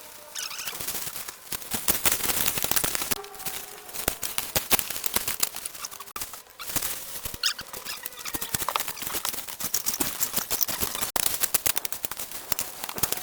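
A dense, irregular run of sharp clicks and knocks mixed with scraping, with no steady rhythm.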